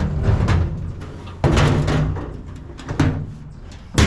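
A truck toolbox being lifted and set in place on a truck's frame, giving a series of hollow clunks and bangs. The sharpest come about a second and a half in and at the very end.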